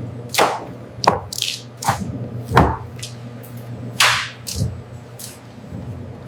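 Water splashing and swishing in irregular bursts, one or two a second, over a steady low machine hum, as wet hides are washed and soaked.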